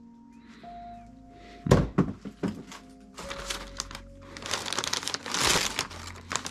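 Background music with a sharp thump about two seconds in, followed by a few knocks and a crinkling, rustling of packaging being handled.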